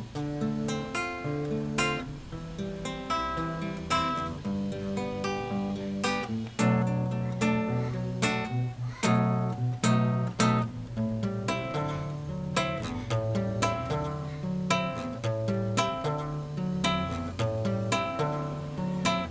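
Acoustic guitar played solo, a continuous run of picked notes and strummed chords over a moving bass line.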